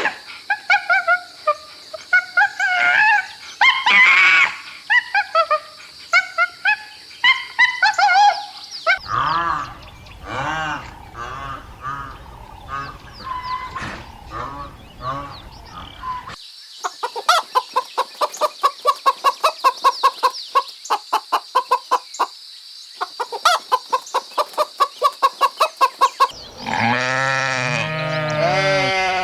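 Farm animal calls in several cut-together clips: short, bird-like pitched calls, then a fast series of short clucking notes at about five a second, and near the end a deeper drawn-out call.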